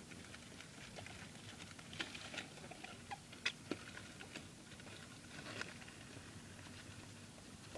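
Young pet rats scurrying and scratching about in a box: light, irregular pattering and scratching with a few sharper clicks.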